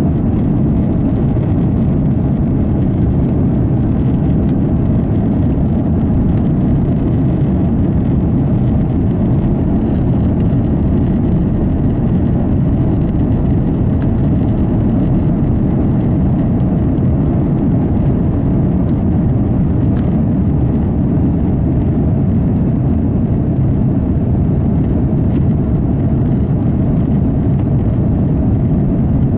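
Airbus A330-200 at takeoff power, heard inside the cabin: a steady, loud rumble of the twin Rolls-Royce Trent 700 engines and rushing air, deepest in the low end, with no change through the stretch.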